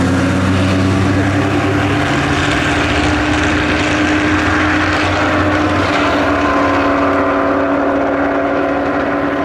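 Historic single-seater racing car engine running hard at high revs, a loud, steady engine note that rises slightly in pitch at the start.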